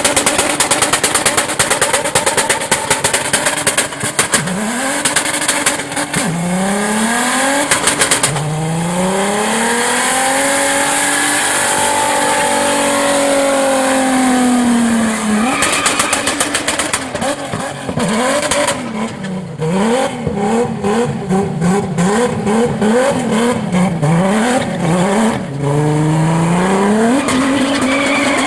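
A car engine revving hard during a drifting display, its pitch climbing and falling again and again, with quick repeated revs in the second half. It runs over a steady hiss typical of tyres screeching on the pavement.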